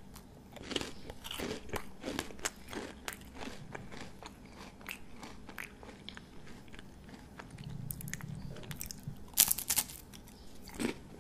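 Close-miked chewing and crunching of a crisp snack topped with carrot mayonnaise. A sequence of crackly crunches runs throughout, with a louder crunching bite near the end.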